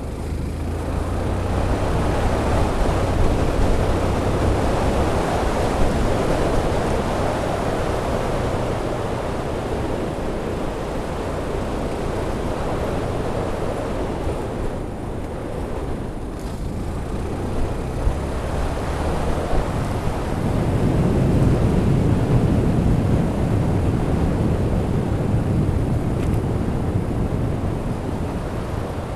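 Wind rushing over the Freedconn R1 helmet camera's microphone through a deadcat muffler on a moving Yamaha FZ16 motorcycle, with the engine running low underneath. The rush swells a couple of seconds in and again about twenty seconds in.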